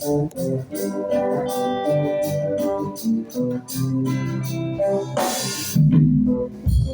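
Reggae band playing an instrumental passage, Hammond-style organ chords and guitar over a steady beat, with a loud crash-like hit about five seconds in.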